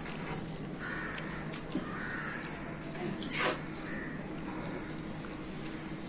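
A crow cawing several times in the background, the loudest call about three and a half seconds in, over the soft sounds of fingers mixing rice in a steel bowl.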